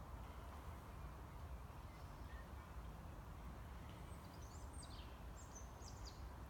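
Faint outdoor ambience: a steady low rumble, with a few short, high bird chirps in the second half.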